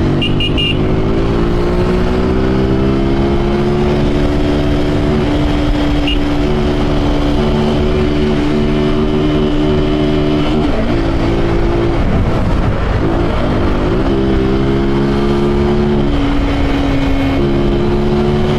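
Carbureted Honda Titan 150's single-cylinder four-stroke engine, running without air filter or intake hose, pulling in gear under way. Its note climbs over the first few seconds, holds steady, then dips and picks up again a few times as the throttle is eased and reopened.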